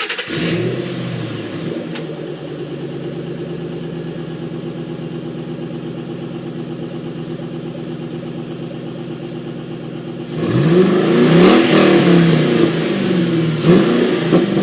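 2005 Ford Mustang GT's 4.6L V8 just after starting, briefly flaring high before settling to a steady idle. About ten seconds in, a few quick throttle blips rev it up and let it fall back.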